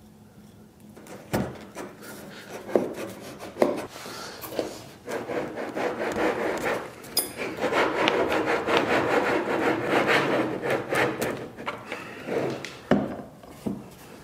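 Glued red oak leg pieces being fitted together: a few sharp wooden knocks, then several seconds of wood scraping against wood with many small clicks as the mitered joint is pressed together on its domino tenons, and one more knock near the end.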